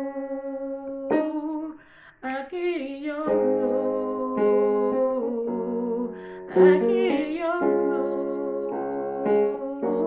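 A woman singing a slow worship melody in long held notes, with sustained chords beneath her from a few seconds in. The sound drops away briefly about two seconds in.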